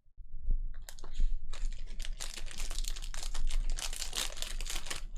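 Foil trading-card pack wrappers crinkling and tearing as packs are ripped open, with a quick run of clicks and rustle as the cards inside are handled.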